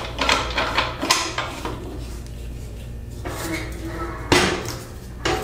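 Aluminum screen-printing frame clanking and rattling against the metal rear clamp of a manual rotary press as the clamp is worked and the screen is pulled out and moved, a series of knocks with the sharpest a little after four seconds in.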